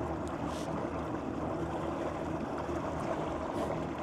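Boat running under electric power at top speed: water rushing along the hull and churning in the wake, with a faint steady hum from an ePropulsion Spirit 1.0 Plus electric outboard and two Minn Kota trolling motors running flat out.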